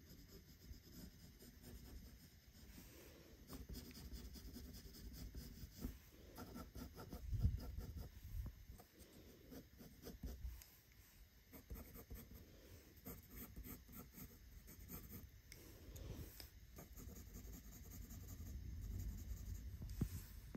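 Graphite pencil hatching on drawing paper: faint, quick scratchy strokes in irregular runs.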